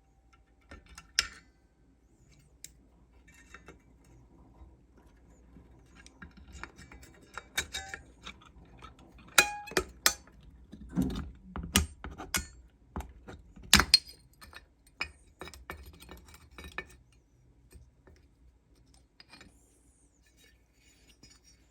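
Metal clinks, taps and clanks of hand tools and steel brake parts as a seized motorcycle rear drum brake is worked apart. The knocks are irregular, with the loudest strikes clustered about halfway through and lighter handling near the end.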